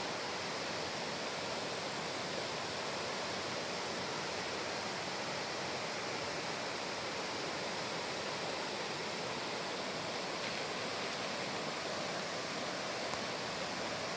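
River water rushing steadily over rocks, a constant even roar of flowing water with no change.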